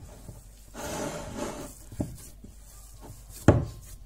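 Hands kneading semolina bread dough in a glass mixing bowl: a rubbing, squashing stretch about a second in, and two knocks at about two seconds and three and a half seconds, the later one the loudest.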